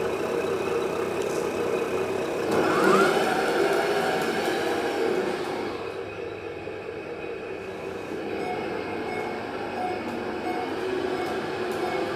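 GT Power sound module playing a simulated diesel truck engine running steadily, with a brief rise in pitch like a rev about three seconds in.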